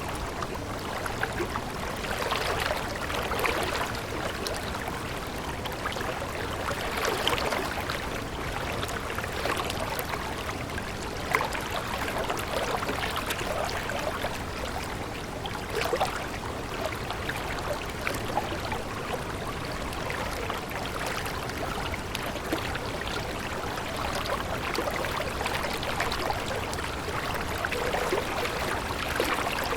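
Stream water running and babbling in a steady flow, with many small irregular splashes and gurgles.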